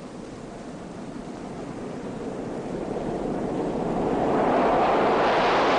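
Two Lockheed F-104 Starfighters' J79 turbojets roaring on takeoff, a rushing jet noise that swells steadily louder as the jets approach and climb toward overhead, then holds loud over the last second or so.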